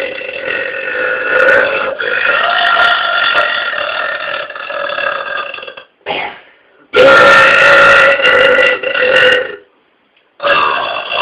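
A man belching: one very long, drawn-out burp held at a steady pitch for about six seconds, then a second burp of about two and a half seconds, and a third beginning near the end.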